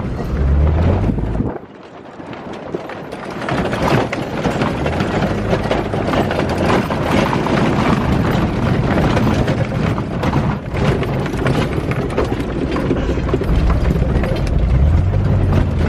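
Jeep driving over rough off-road ground: a low engine rumble under a steady stream of rattles, knocks and crunches. The sound drops briefly about a second and a half in, then picks up again.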